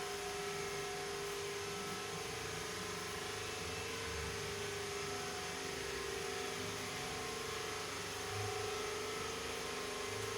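A steady machine hum with a faint, slightly wavering whine over an even hiss.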